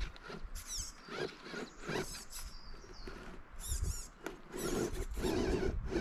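Radio-controlled rock crawler's electric motor and gearing whining in short throttle bursts, the high whine wavering up and down as it climbs over rocks, with clicks and knocks of the tyres and chassis on stone.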